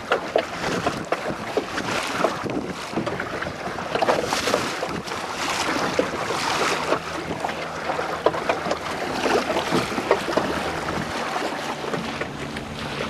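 Wind buffeting the microphone over water slapping and splashing against a small boat's hull, with a faint low hum that comes in near the end.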